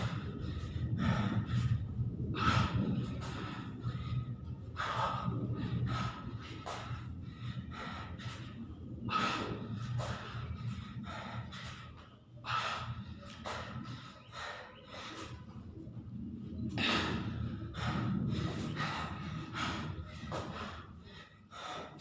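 A man breathing hard from exertion during push-ups: sharp, forceful puffs of breath repeating again and again, roughly one or two a second, with short pauses between runs.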